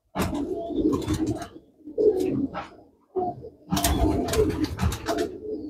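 Domestic pigeons cooing, in several bouts with short pauses between them.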